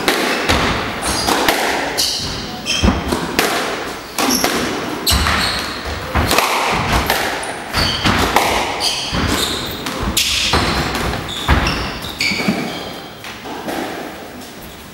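Squash rally: the ball smacking off rackets and thudding against the court walls in quick, irregular strikes, with shoes squeaking on the wooden floor. The hits stop about twelve seconds in as the rally ends.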